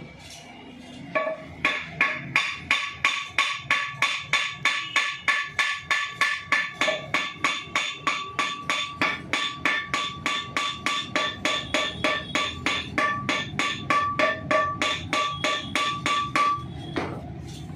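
Hand hammer striking metal in a long, steady run of blows, about three a second, each leaving a bright metallic ring, as parts are driven home during assembly of a Mahindra Jeeto gearbox. The blows start about a second in and stop shortly before the end.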